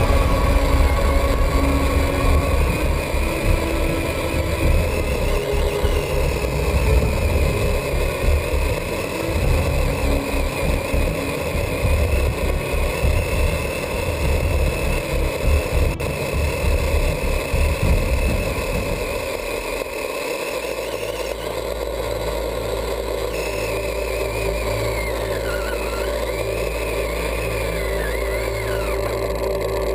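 Onboard sound of an electric RC truck driving: an uneven rumble of drivetrain and tyres over rough ground, with a motor whine that wavers in pitch. About two-thirds of the way through, the rumble gives way to a steadier low hum while the whine glides up and down.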